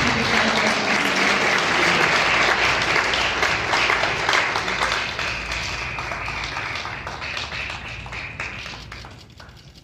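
An audience applauding: many hands clapping, full at first, then thinning and dying away over the last few seconds.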